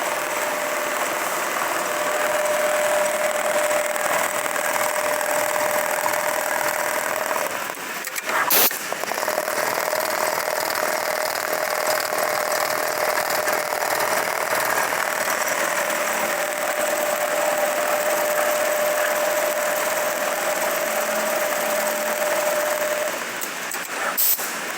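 Lanmax LM 1390G-HL programmable industrial pattern sewing machine running, a steady motor whine over a continuous mechanical clatter. It stops briefly twice, about eight seconds in and near the end, each stop marked by a sharp click before it runs again.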